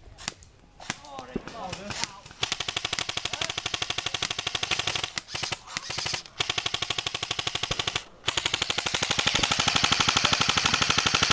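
An airsoft rifle firing on full auto in long, rapid bursts of evenly spaced shots. The first burst starts about two seconds in, a few short breaks follow, and the last burst runs on without stopping.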